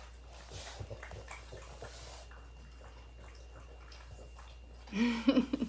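French bulldogs eating apple pieces, with faint wet smacking, licking and small crunching clicks. About five seconds in, a short voiced sound that holds a pitch and then bends upward.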